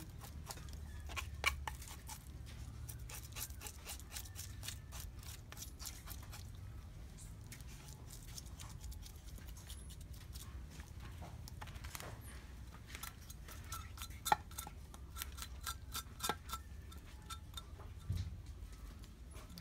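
Footsteps walking through tall grass and rice stalks: scattered crunches and swishes of the stalks underfoot, over a steady low rumble.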